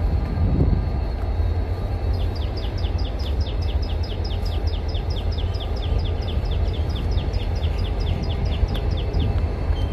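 A bird calls a rapid, even run of short, falling chirps, about five a second, starting about two seconds in and stopping near the end. Underneath is a steady low rumble from the idling diesel locomotives.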